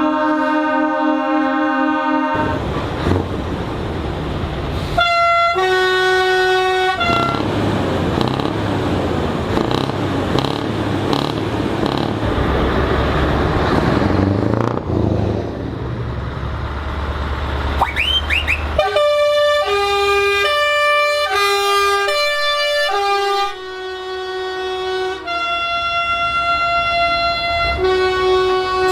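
Truck horns sounding as trucks drive in: a held multi-tone horn chord at the start, then truck engine and air noise, and for the last ten seconds a musical multi-note horn playing a tune of changing notes.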